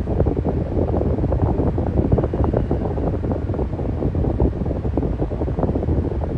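Electric fan running steadily: a constant low rush of moving air with a fluttering texture and no changes in speed.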